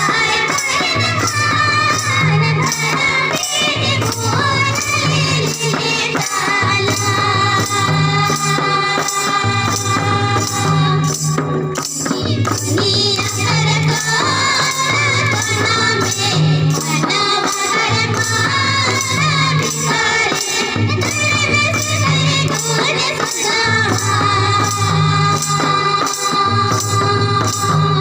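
A song with a woman singing over a steady, repeating bass beat and a regular high jingling percussion.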